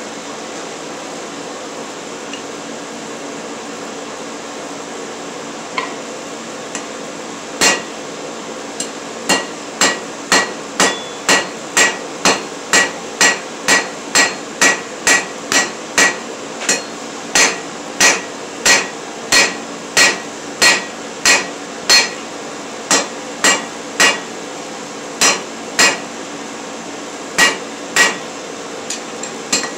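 Hand hammer striking a red-hot iron bar on an anvil, forging it by hand, at about one and a half blows a second with a bright ring after each blow. The blows start about eight seconds in, over a steady background hum, and come in runs with short pauses.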